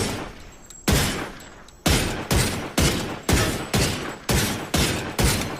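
Handgun sound effect firing ten shots, each with a short echoing tail. The first three come about a second apart, then the rest follow faster at about two a second.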